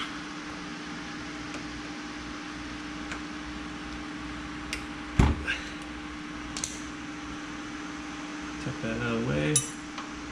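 Hand tools knocking and clicking during work on a car's rear brake caliper, with one sharp knock about five seconds in, over a steady mechanical hum in the garage. A short burst of voice comes near the end.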